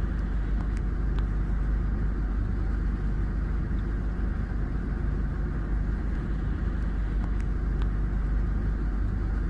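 Steady low rumble of outdoor background noise, even in level throughout, with no distinct passing or horn.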